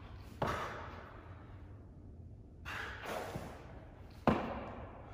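Two sharp thuds of a body and hands or feet landing on a gym floor during a floor stretch, about half a second and about four seconds in, the second the louder, with hard breaths out in between.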